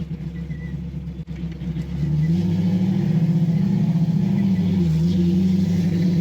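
1965 Ford Mustang's engine running with aftermarket exhaust: quieter at first, then louder about two seconds in, its pitch wavering up and down as the car creeps along, which the driver thinks may be the engine trying to find idle.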